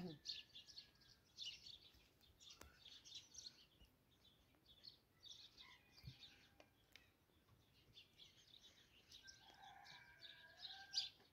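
Faint birds chirping, short high chirps scattered throughout, with a few longer held notes near the end; otherwise near silence.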